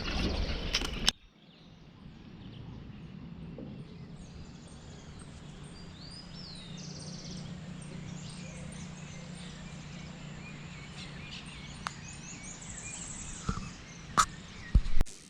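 Outdoor ambience: small birds chirping and trilling over a steady low hum. A few sharp knocks come near the end.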